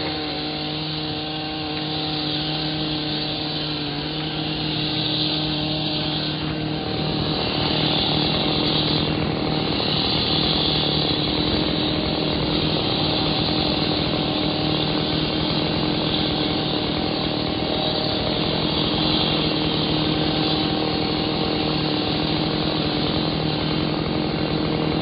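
Gas chainsaw running at full throttle at a steady pitch. About seven seconds in, the sound turns rougher and slightly louder and stays so.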